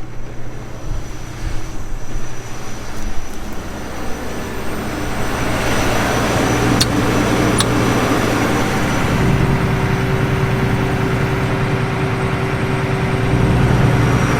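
Combine harvester running, its engine and threshing machinery making a steady mechanical hum that grows louder from about four seconds in. Two short sharp clicks come near the middle.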